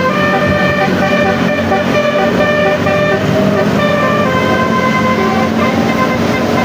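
Telolet multi-tone bus horn playing a tune: several horn tones sound together, held and changing pitch in steps, over a low rumble.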